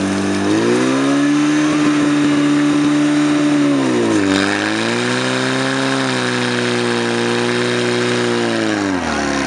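Portable fire pump's engine running hard: its revs rise about half a second in, sag briefly around four seconds and pick up again, then drop away near the end.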